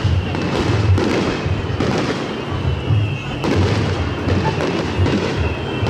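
Fireworks bursting, several sharp reports with crackle, over a steady beat of a large taiko drum about twice a second.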